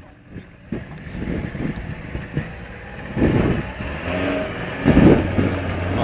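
Off-road 4x4 pickup's engine revving as it creeps forward, with two louder surges of throttle, about three seconds in and again near the end.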